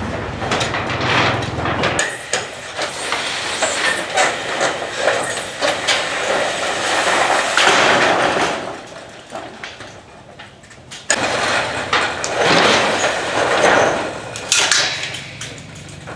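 Old corrugated metal roofing sheets being pried off and dragged across a roof: repeated hammer knocks and clatter, with two long stretches of sheet metal scraping and rattling. A low steady hum is under the start and returns near the end.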